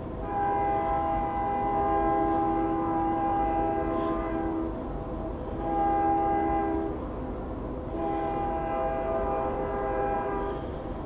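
Train horn sounding several notes at once, in three blasts: a long one, a short one, then another long one.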